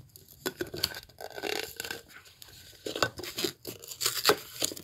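A drinking glass being pulled out of its thin cardboard box by hand, with the cardboard tearing and crinkling and the glass scraping against it. The sound comes as irregular rustling and scraping with many short clicks.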